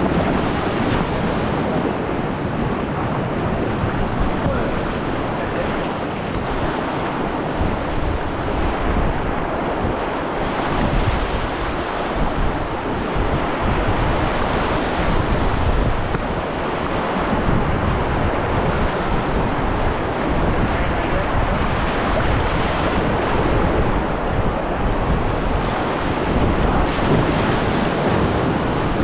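Loud, steady rush of whitewater pouring through a creek rapid.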